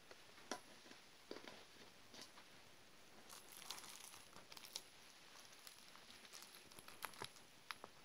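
Faint crinkling of thin plastic wrap with scattered sharp clicks as green gel blobs sealed under it are pressed and picked at with fingers and tweezers in a mock pimple-popping prop. The crackling comes in short clusters, mostly in the middle and near the end.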